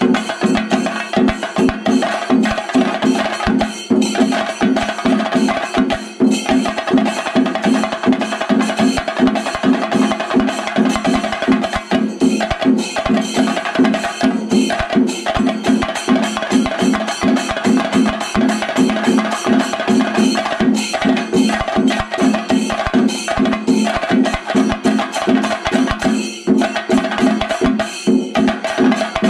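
Music of fast, continuous drumming over a steady held drone.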